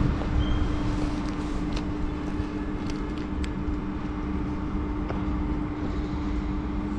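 Electric locomotive standing ready to depart, its equipment running with a steady low hum and one constant tone. A few faint clicks come about two to three seconds in.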